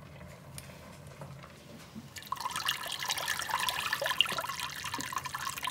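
Thick puréed vegetable stock pouring and splashing into a stainless steel pot, starting about two seconds in.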